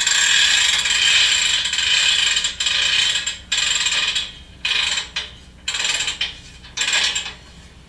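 Railroad freight-car handbrake sound effect, a ratcheting clatter as the brake wheel is wound on. It plays as one long run followed by several shorter ones, the sign of a handbrake being set on a car.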